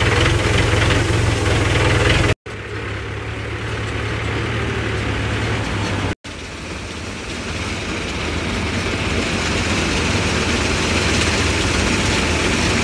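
Tractor's diesel engine running steadily under way, broken twice by abrupt brief gaps. In the last part a combine harvester runs alongside, with a rising hiss as grain pours from its unloading auger into the trolley.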